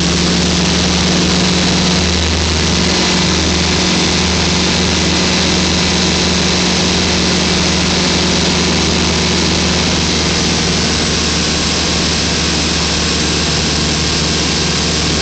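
Sky Ranger ultralight's engine and propeller running steadily at high power through the takeoff roll and climb, heard from inside the cockpit, with a constant rushing noise over the engine's low drone.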